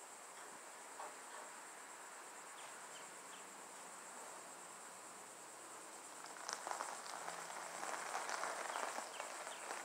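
Insects droning steadily at a high pitch. From about six seconds in, gravel crunches under the tyres and footsteps as a bare car chassis is pushed by hand across it.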